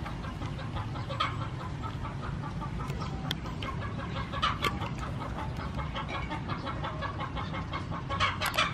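Chickens clucking, short clucks scattered throughout, over a steady low rumble.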